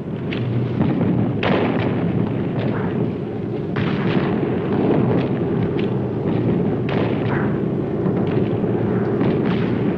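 Steady drone of B-17 bomber engines in flight, with three explosions breaking through it at about a second and a half, four and seven seconds in.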